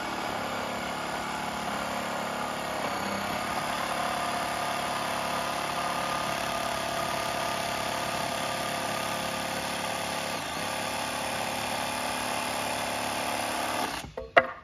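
Handheld electric power saw running continuously as it cuts through lumber, cutting off abruptly near the end, followed by a few sharp knocks.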